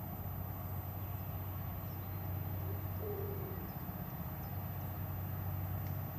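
Steady low drone of a large cruise ship's engines as it passes. A bird gives a brief low coo about three seconds in.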